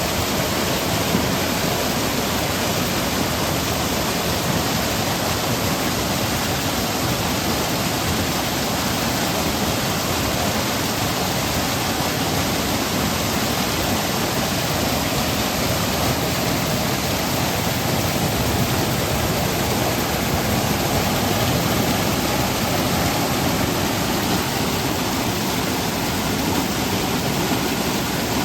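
Seasonal monsoon stream rushing and cascading over rocks and pebbles, a steady, even roar of water.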